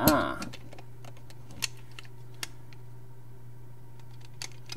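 Lego plastic pieces being handled: a few sharp, light clicks and taps as the tower module is fitted onto its base, after a brief voice sound at the start, over a steady low background hum.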